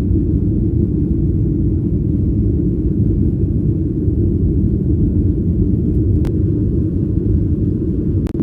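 Steady low rumble of a vehicle in motion, with two faint clicks near the end.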